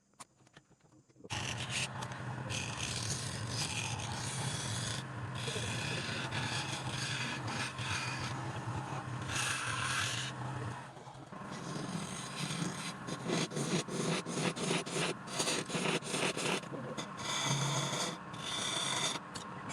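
Turning tool scraping and cutting wood spinning on a lathe, over a steady low hum. About a second in it starts abruptly, and from about eleven seconds in the cutting turns choppy, with many short scrapes in quick succession.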